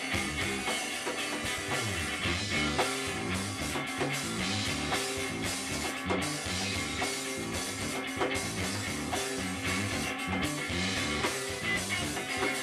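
Live rock band playing an instrumental passage: electric guitar, electric bass and drum kit.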